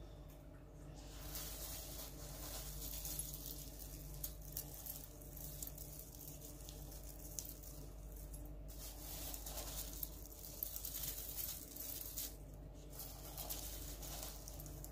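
A hand rummaging through a pile of coarse salt granules, plastic beads, sequin confetti and crinkly plastic wrap on a carpet: crackling, crunching rustles with a few sharp ticks. It goes quiet briefly about nine seconds in and again near the end. A faint steady low hum lies underneath.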